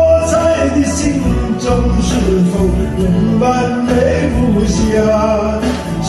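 Karaoke: a man singing into a microphone over a pop backing track.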